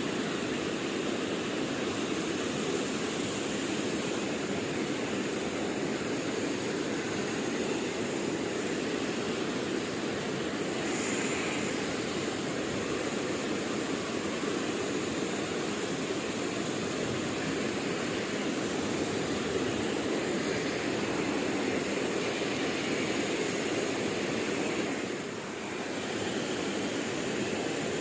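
Steady rush of flowing river water, with a thin steady high tone above it; the sound dips briefly near the end.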